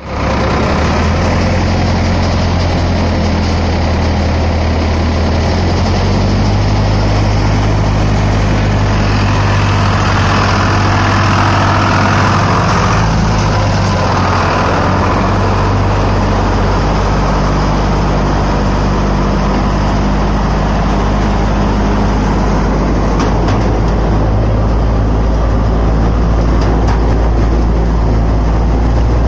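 Multicrop thresher running empty, its belt-driven pulleys, drum and hopper auger turning, together with the steady running of the tractor engine that drives it. The sound is a loud, steady mechanical hum with a low engine drone underneath.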